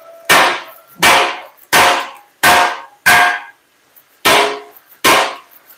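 Seven ringing hammer blows on a 3/8-inch steel reinforcing plate on an Eaton truck rear axle housing, about one every 0.7 s with a short pause after the fifth. The blows are seating the plate so it takes the housing's shape before it is welded.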